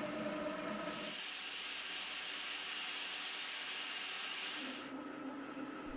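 Metal lathe turning a steel motor pulley. The machine hums steadily, then from about a second in the high-speed steel tool cuts the V-groove with a steady hiss for about four seconds before the cut eases off and the hum remains. The steel is tough going for the high-speed steel tool.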